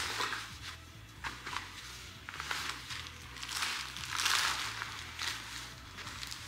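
Plastic packaging and fabric rustling and crinkling as they are stuffed into a backpack, in uneven bursts, the loudest a little past four seconds in.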